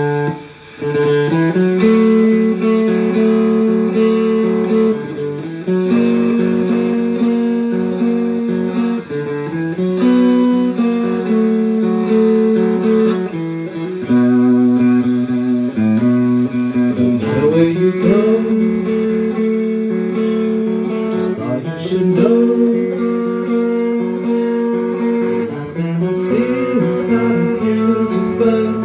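A rock band playing live: electric guitars and electric bass through combo amplifiers, holding chords that change every few seconds, with sharper strummed attacks in the second half.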